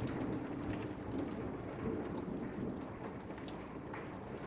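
Thunder rumbling and slowly dying away under heavy rain, with scattered raindrops ticking.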